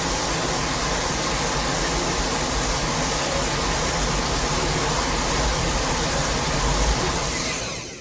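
A 2001 Godzilla sound effect: a steady, rumbling, hissing noise with no pitched roar in it, fading out at the very end.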